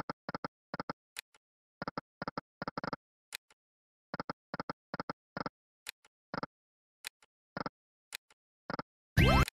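Slot game sound effects: a string of short, sharp electronic clicks, often in quick pairs, as the reels of the Extremely Hot video slot stop spin after spin. Near the end comes a brief, loud electronic flourish with rising tones.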